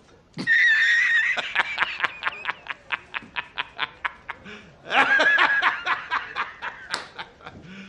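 A man laughing hard from a film clip: a high-pitched cackle that breaks into a long run of short ha-ha-ha pulses, about four or five a second, that fade away. A second burst of laughter comes about five seconds in.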